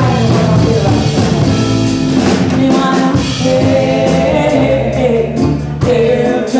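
Live ragga band music: drum kit and bass playing a steady groove under a sung vocal line.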